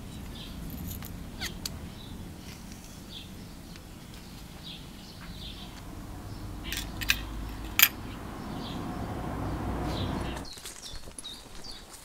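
Birds chirping now and then over a low background rumble, with a few sharp clicks about seven to eight seconds in, the loudest near eight seconds.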